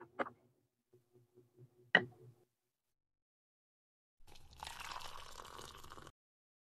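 Small clicks from a miniature cabinet drawer being pushed shut, with a sharp click about two seconds in. Later, milk is poured from a small measuring cup into a glass bowl, a steady trickling splash for about two seconds.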